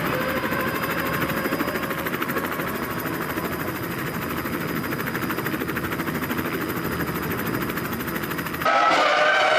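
Formula One car's V10 engine noise, steady and rough with no clear pitch. About a second before the end a cut brings a louder, higher-pitched engine note.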